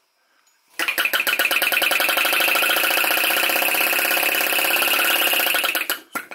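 PM Research Solar Engine No. 3 flame-licker (vacuum) engine starting again after a brief stop, about a second in, with a flick of the flywheel. It runs with a fast, even rhythmic beat as the flame is sucked into the cylinder. Near the end it is stopped by hand, and a few slower ticks follow as it winds down.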